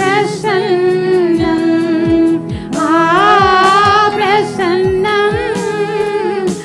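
Woman singing a Tamil worship song into a microphone, holding long wavering notes with vibrato, over backing music with a steady drum beat.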